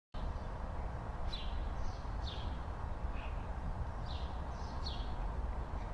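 Outdoor ambience of birds chirping: short, falling chirps about once a second over a steady low rumble.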